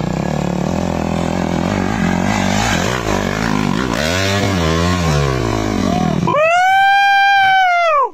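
Dirt bike engine revving on a rocky climb, the revs rising and falling several times. About six seconds in, a loud, high, drawn-out tone takes over for nearly two seconds.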